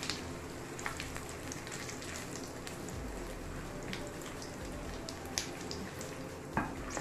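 Whole spices (bay leaves, whole garam masala, dried red chillies and cumin seeds) sizzling and crackling in hot mustard oil in a kadai, with scattered small pops and two louder pops in the second half.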